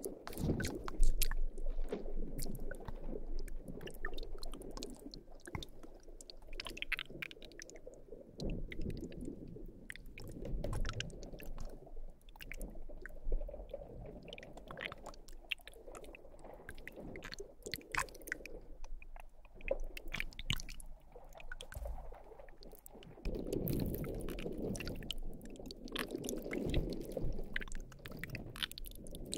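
Wet squelching and squishing of slime worked close to a binaural microphone, in uneven swells with many small sticky clicks and pops.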